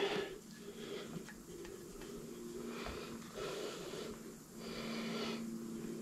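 Slow breathing close by, a soft breath roughly every two seconds, over a faint steady hum.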